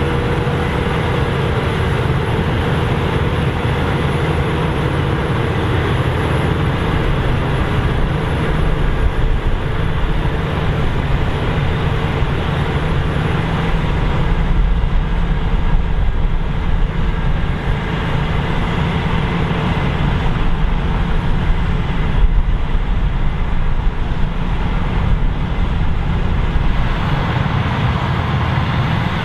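Claas Lexion 770 combine harvester running steadily at harvesting load: a continuous low engine and machinery drone, with a faint thin high whine over it.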